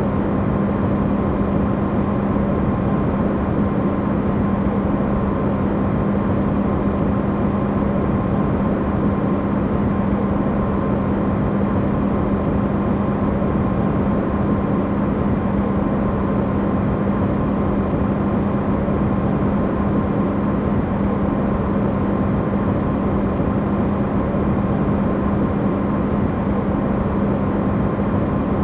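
Electrolux refrigerator running, recorded amplified: a steady hum with one strong low tone and fainter higher ones over an even rushing noise.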